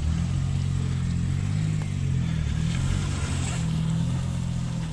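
Car engine running under throttle, a low steady drone whose pitch rises and dips slightly, as a car struggles to move on a snowy road.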